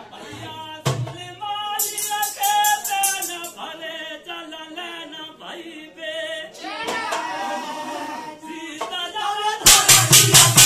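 A folk bhajan sung in a wavering, melismatic voice, with a jingling shaker beat for a second or so about two seconds in. Near the end, loud rhythmic percussion comes in suddenly at a fast, steady beat under the singing.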